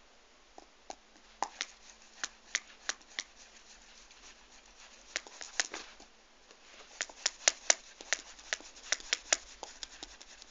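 Paper and glossy sheets crackling and clicking under a cat's paws as it steps and treads on them, in uneven bursts of sharp ticks with short pauses between.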